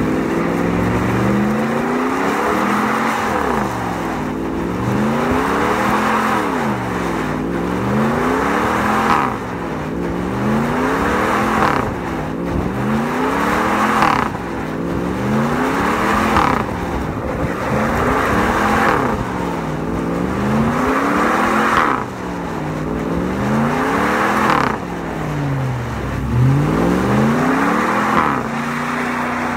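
Ram pickup's 5.7-litre Hemi V8 revving up and falling back over and over, about once every two seconds, during a burnout on 37-inch BFGoodrich KO2 tyres. A hiss of spinning rubber on pavement swells with each rise in revs.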